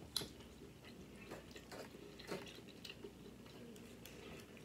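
Faint, irregular taps and clicks of a plastic fork working in a plastic takeout container, with quiet chewing.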